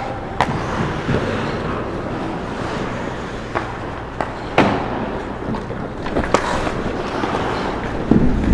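Ice hockey play near the net: skate blades scraping the ice under a steady rink hiss, with about six sharp clacks of sticks and puck, and a cluster of knocks near the end as players crowd the crease.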